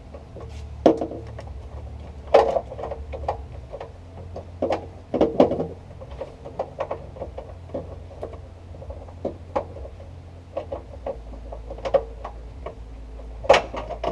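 Irregular plastic clicks and knocks of a car door's wiring-harness connectors being worked loose and unplugged, several of them sharp and louder, over a steady low hum.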